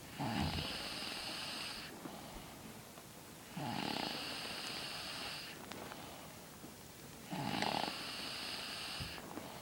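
A sleeping person snoring: three snores about three and a half seconds apart, each lasting under two seconds, with quieter breaths between.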